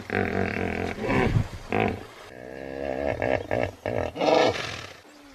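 Hippopotamus calling: a run of deep grunting calls, a longer pulsing call in the middle and another loud call near the end, then the sound dies away.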